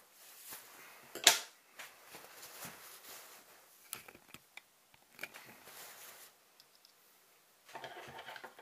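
Nylon hammock fabric being handled and pulled at a sewing machine: rustling and scattered small clicks, with one sharp knock about a second in.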